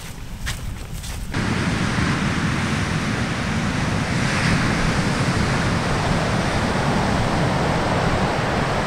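Footsteps in sand, about two steps a second, for the first second or so. Then a sudden switch to a steady rush of ocean surf, with wind buffeting the microphone.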